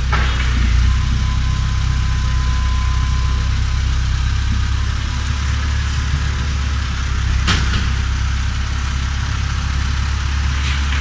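Diesel engine of a telehandler running steadily while it lifts a prefabricated cabin module, with a couple of short knocks.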